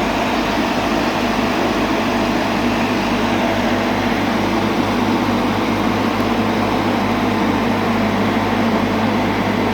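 Road roller's engine running steadily with a continuous low hum.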